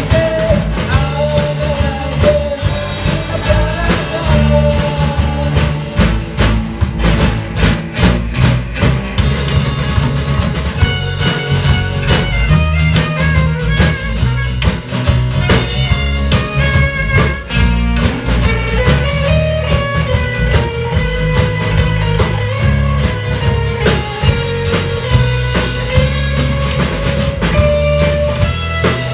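Live pop-rock band playing: drum kit and bass keeping a steady beat under electric guitar, with a gliding melodic line over the top.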